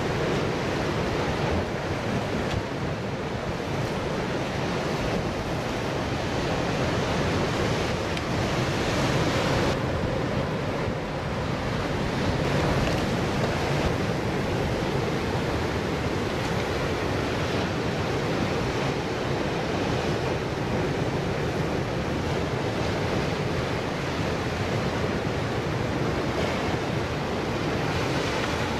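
Ocean surf breaking and washing over the rocks, a steady rushing wash that swells and eases, with wind rumbling on the microphone.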